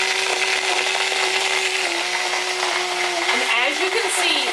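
Immersion blender motor running steadily, held still at the bottom of a tall cup of oil, egg and chipotle peppers as the mix emulsifies into mayonnaise. Its pitch wavers in the last second or so.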